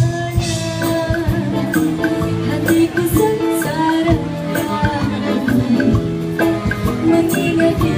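Live Malay band music: a woman singing into a microphone over a band with a steady percussion beat.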